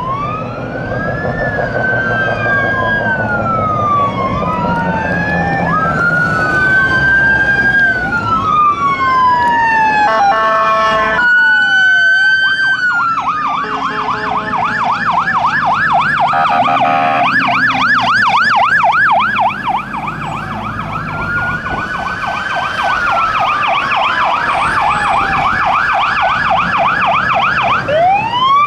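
Fire apparatus electronic sirens sounding while responding: a slow rising-and-falling wail, with more than one siren overlapping at first. A horn blast comes about ten seconds in, then the sirens switch to a fast yelp of several sweeps a second, back to a wail, and to the yelp again near the end.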